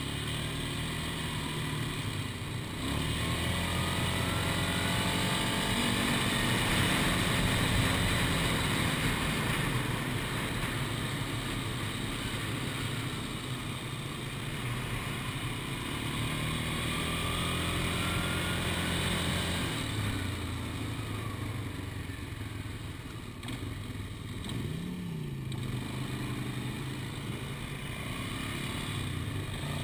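Polaris Scrambler ATV engine running at riding speed, heard up close, its note rising about 3 s in and easing back about 20 s in with the throttle. Mixed in is the exhaust of an Aprilia Tuono V4 motorcycle riding ahead with its exhaust flapper valve disabled.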